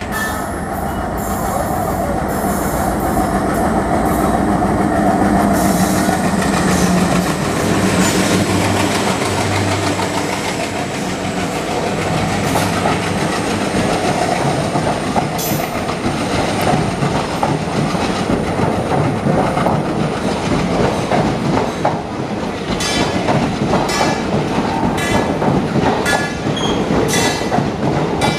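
ALCO-type WDM diesel locomotive passing at speed with a long passenger train: its engine drone fades over the first ten seconds or so into a steady rumble of coach wheels on rail. Near the end comes a regular clickety-clack as the wheels cross rail joints.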